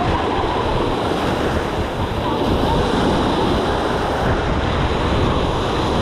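Small waves breaking and washing up the sand at the shoreline, a steady surf wash, with wind buffeting the microphone.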